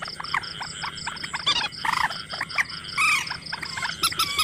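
Frogs calling in chorus, many short arching calls, over an insect's steady high-pitched pulsing at about eight pulses a second.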